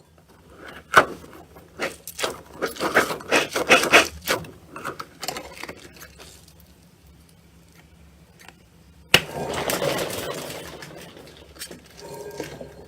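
Slime being squished and poked by hand: a run of sticky clicks and crackles, densest around the middle of the first half. About nine seconds in a sudden louder crackling squelch begins and fades over a couple of seconds.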